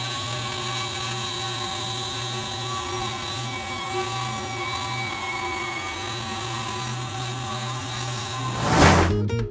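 Benchtop bandsaw running steadily while it cuts through two layers of plywood glued together. Near the end a brief loud rush of noise comes in, and music starts.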